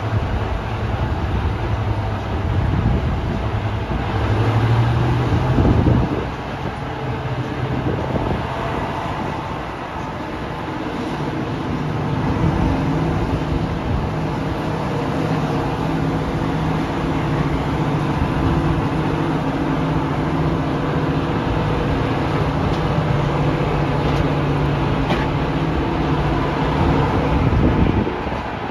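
Class 55 Deltic locomotive's Napier Deltic two-stroke engines running with a steady note over the train's wheels on the rails, heard through an open carriage window. The loudness dips for a few seconds about six seconds in, then holds steady.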